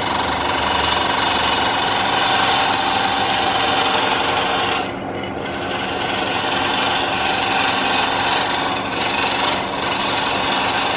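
Jet wood lathe running while a hand-held turning tool cuts into the spinning wooden blank: a steady rasping scrape over the machine's hum, truing up a blank that wobbles off-centre. The cut lifts off briefly about five seconds in, and twice more for a moment near the end.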